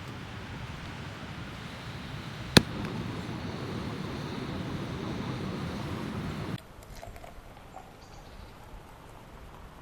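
Steady low outdoor rushing noise with one sharp click about two and a half seconds in. Past the middle the rushing cuts off abruptly, leaving a much quieter background.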